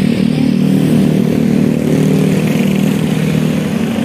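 Scania coach's diesel engine running steadily, a loud low drone close by.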